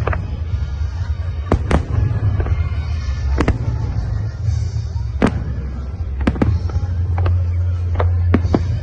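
Fireworks salute going off: a continuous heavy low rumble of booms, broken by about a dozen sharp cracks at uneven intervals, with a spell of high crackling in the middle.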